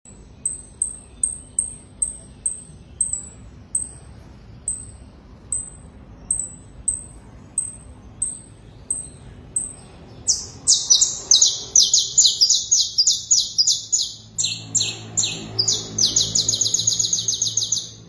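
Canary singing: a series of short, high single chirps about two a second, then, about ten seconds in, a loud song of rapid repeated notes that speeds into a fast, even trill near the end.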